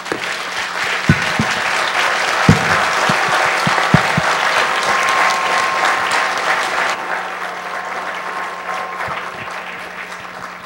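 A large audience applauding, starting right away and slowly dying down over the last few seconds, with a few dull thumps in the first four seconds.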